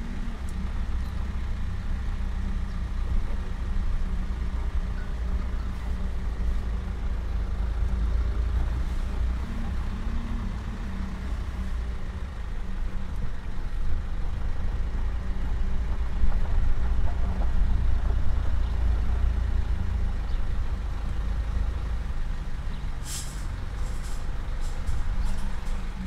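Game-drive vehicle's engine running as it drives, a steady low rumble, with a few sharp knocks about three seconds before the end.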